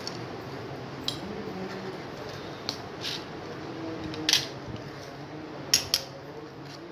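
Metal gear lever linkage parts and hand tools being handled: a handful of short, sharp clinks and clatters, the loudest about halfway through and two in quick succession near the end, over a steady low hum.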